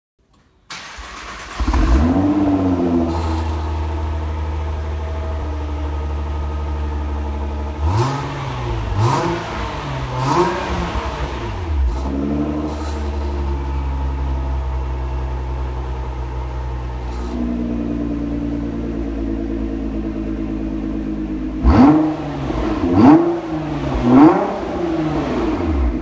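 Nissan GT-R R35's twin-turbo V6 through an Armytrix cat-back exhaust, starting up about two seconds in with a short flare, then idling. It is blipped three times in quick succession about a third of the way in, and three times again near the end.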